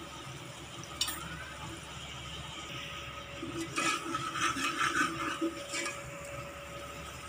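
A steel spoon stirring and scraping freshly added ground spices into an onion-tomato masala frying in oil in a pressure cooker, with a sizzle underneath. There is a single knock about a second in, and the stirring clatters and scrapes most from about 3.5 to 6 s.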